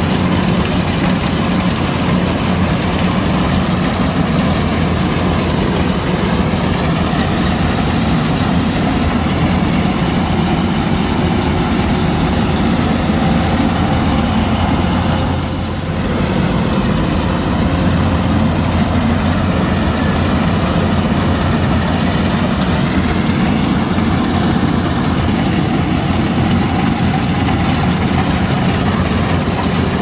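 Kubota DC-105X combine harvester running steadily, its diesel engine and machinery making a continuous heavy drone with a faint wavering whine above it. The sound dips briefly about halfway through.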